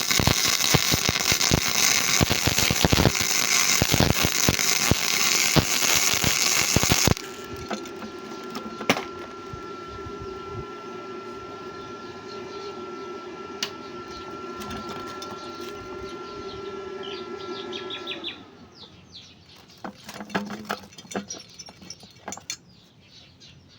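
Gasless flux-core MIG welding arc crackling and spitting steadily, then cutting off abruptly about seven seconds in. A quieter steady hum with a thin whine follows, stops after about eleven more seconds, and leaves a few light clicks.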